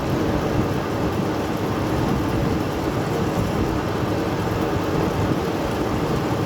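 Lathe running steadily during a turning cut: a constant mechanical hum with a noisy hiss over it.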